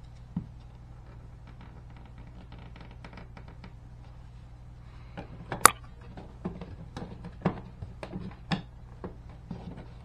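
A plastic GFCI outlet cover plate being handled and fitted against the receptacle and wall box: light clicks and knocks, a sharp click about halfway through, then several louder knocks.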